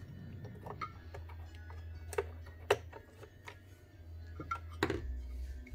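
A few sharp clicks and knocks as soldering-iron connector plugs are handled and pushed into the soldering stations' front sockets, over quiet background music.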